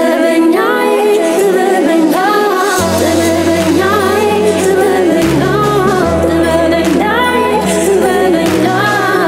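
A woman singing a pop song into a microphone over amplified backing music, with a bass line coming in a little under three seconds in.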